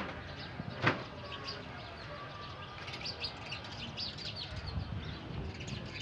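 Small birds chirping in many quick short notes over a low background hum of the shed, with two sharp knocks about a second apart at the start.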